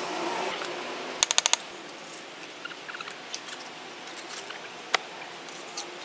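Steel brick trowel knocking on a freshly laid brick set in mortar: a quick run of five sharp taps about a second in, then a few lighter scattered clicks and a single sharper knock later on.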